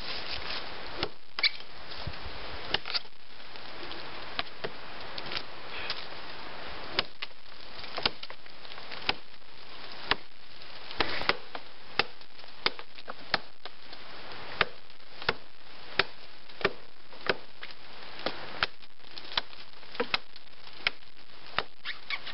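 A Woodsman's Pal hooked brush blade chopping into a fallen tree trunk: sharp, separate wooden chops, irregular for the first few seconds, then steady at about three every two seconds.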